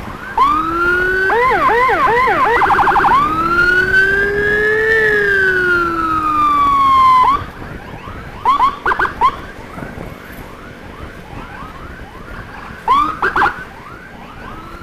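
Electronic emergency siren running through its tones: a rising whoop, a quick run of yelps and a fast warble, then one long slow rise and fall that cuts off suddenly about seven seconds in. After that, short siren chirps come twice over steady traffic noise.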